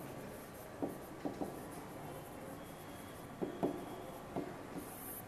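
Stylus tapping and scraping faintly on an interactive whiteboard's screen as a word is written out, with about half a dozen light taps scattered through.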